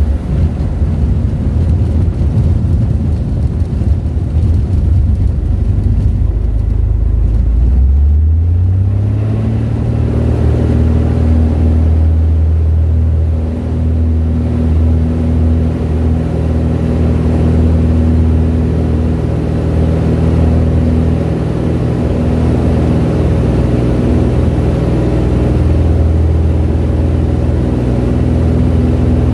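Light aircraft's engine and propeller heard from inside the cabin during a takeoff from grass. A rough low rumble rises in pitch about eight seconds in, then settles into a steady full-power drone through the takeoff run and climb-out.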